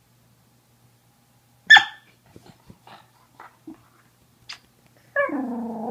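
A corgi gives one short, sharp bark about two seconds in, then a few faint snuffly clicks, and near the end a long, wavering, Wookiee-like grumbling call.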